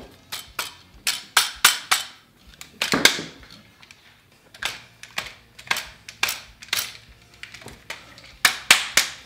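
Hands slapping and knocking the body of an airsoft M4 AEG: a run of sharp smacks a few per second, a heavier thump about three seconds in, and a quick cluster near the end. The gun does not fire; the hits are a test of whether knocks set off its very sensitive Titan MOSFET trigger.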